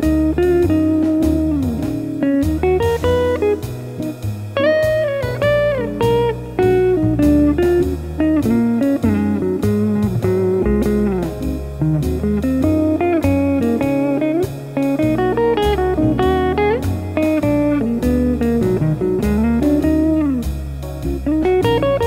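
Farida FA-16MP hollow-body archtop electric guitar played through an amplifier: a continuous run of single-note lead lines with frequent string bends that rise and fall in pitch.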